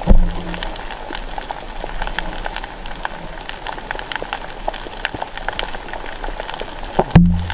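Underwater crackle of snapping shrimp on a reef at night, a dense, steady patter of tiny clicks. Two short low thuds break in, one right at the start and one near the end.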